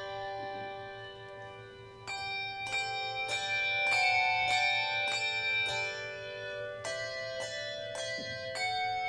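A handbell choir ringing chords: each chord is struck together and left to ring, fading until the next. A softer, ringing-out moment comes just before two seconds in, followed by fuller chords.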